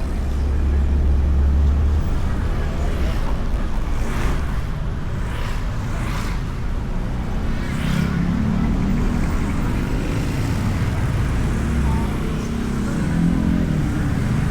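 Motorbike riding heard from inside the rider's helmet: steady wind and road rumble, with several brief whooshes a few seconds in and an engine drone that grows stronger from about halfway.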